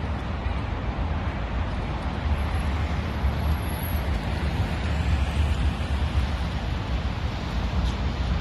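Steady outdoor city noise: a low, uneven rumble with an even hiss over it, from street traffic and wind on the phone's microphone.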